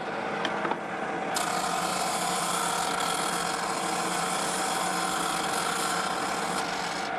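Stationary drum sander running with a steady motor hum; about a second and a half in, the corner of an oak board is pressed against the spinning sanding drum, adding a loud even sanding hiss that stops shortly before the end as the wood is rounded off.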